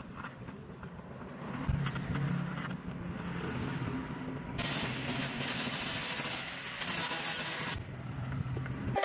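An engine running steadily, with a loud hiss for about three seconds from the middle that starts and stops abruptly.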